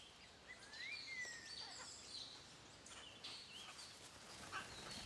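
Faint outdoor ambience with birds chirping and calling: short high chirps repeating throughout, and one longer call that rises and then falls about a second in.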